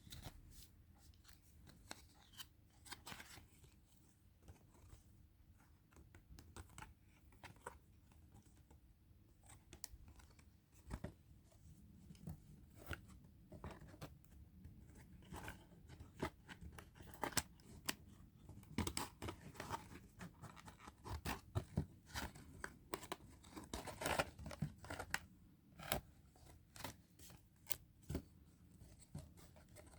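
Quiet unboxing sounds: scissors snipping and packaging tearing, heard as scattered sharp clicks that come more often and louder in the second half.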